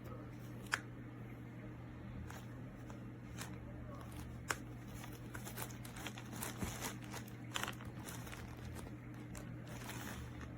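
Scattered small clicks and short crinkling rustles from handling small objects, denser in the second half, over a steady low electrical hum.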